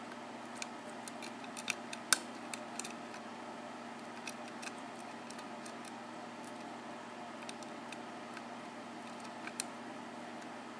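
Small, irregular metallic clicks of a lock pick working the pin stacks of a Manko 5-pin mortise cylinder, the sharpest about two seconds in, over a steady low hum.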